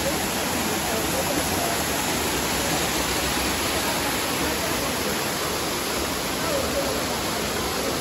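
A waterfall's cascade rushing steadily over rocks: a constant, even rush of water.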